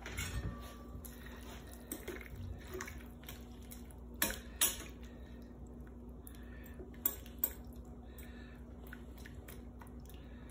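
Metal tongs clinking against a cast-iron pot as seafood is laid into the soup. There are scattered light clicks, with two pairs of sharper clacks, one about four seconds in and one about seven seconds in, over a faint steady hum.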